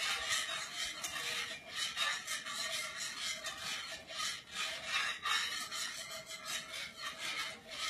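A utensil scraping and stirring a thickening pan sauce around a skillet in quick repeated strokes, about two to three a second.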